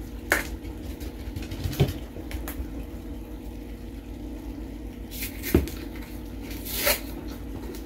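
A plastic seasoning jar being opened and handled: its cap comes off and a few scattered clicks, knocks and light rustles follow, over a steady low hum.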